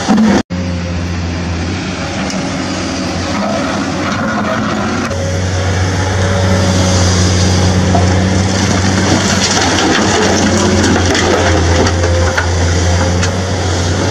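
Huina remote-control toy excavator running, a steady mechanical hum from its motors. In the second half, soil and small stones fall from its bucket into the plastic bed of a toy dump truck.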